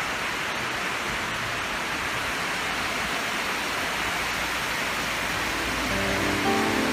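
Water spilling over a low weir in a shallow river, a steady rush. Music comes in about six seconds in.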